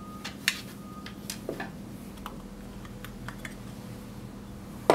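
Scattered light metallic clicks and taps from the panic latch's cap screw and back plate being worked loose and handled, with a louder metal clatter right at the end.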